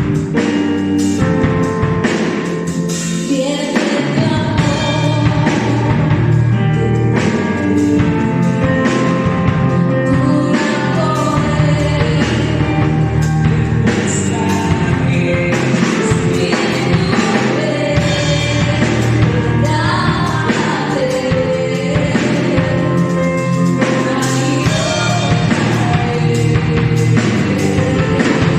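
Christian worship song: singing over a full band with drums, playing steadily throughout.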